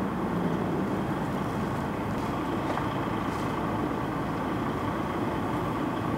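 Steady, unchanging drone of running machinery, a constant mechanical hum with no rise or fall.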